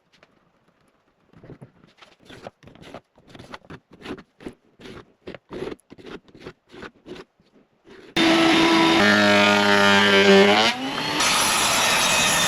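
Irregular light knocks and clicks, two to four a second, for about eight seconds. Then a loud woodworking power tool switches on abruptly and runs steadily, its hum dipping in pitch briefly near the ten-second mark.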